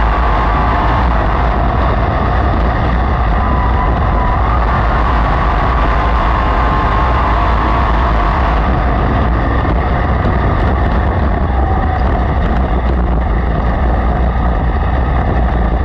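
Sprint car V8 engines running at racing speed on a dirt oval: a loud, steady engine note that wavers up and down in pitch. It cuts off suddenly at the end.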